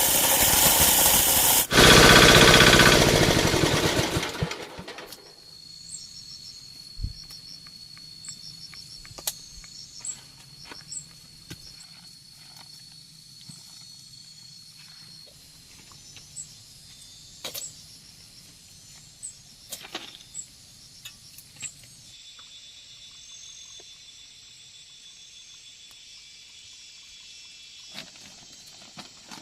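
A motor engine running loudly, fading out over the first few seconds. Then a quiet countryside background with a steady high insect trill and scattered light clicks and ticks.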